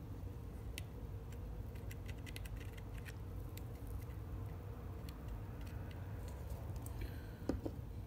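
Light scattered clicks and taps from hands working a wooden lure body, a threaded wire and a super glue bottle, mostly in the first half, over a low steady hum.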